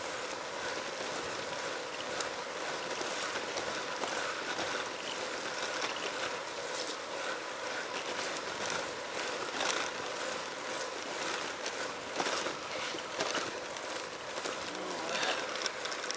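Steady hiss of a car's tyres running on a rain-wet road, with a faint steady hum and scattered small clicks.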